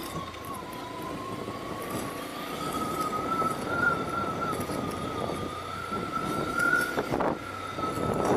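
Bajaj Pulsar 150 motorcycle being ridden, heard as steady wind and road noise with a thin high whine that slowly rises in pitch over the first few seconds and then holds. Two short knocks come about seven seconds in.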